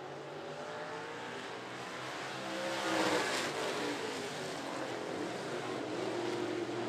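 Several dirt-track race cars running at racing speed around the oval, their engine notes rising and falling as they pass. The loudest point is about three seconds in, as the pack goes by.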